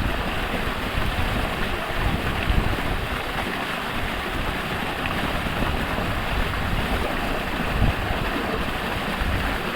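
Falling water rushing steadily, with a low, uneven rumble underneath.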